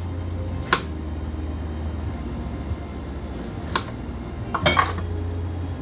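Knife and cutting-board knocks and clinks as a chopped onion is cut and handled: one knock just under a second in, another a little before four seconds, and a quick clatter of several about a second before the end, over a steady low hum.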